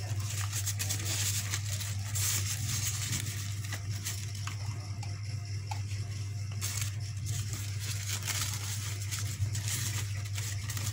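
Crepe paper rustling and crinkling as it is handled, gathered and twisted around a stick, with small irregular crackles, over a steady low hum.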